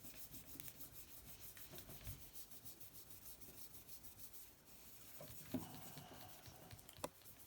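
Faint, steady hand rubbing on the cast aluminium engine case of a Honda C70, polishing into its nooks and crannies. A light knock comes about five and a half seconds in, and a click near the end.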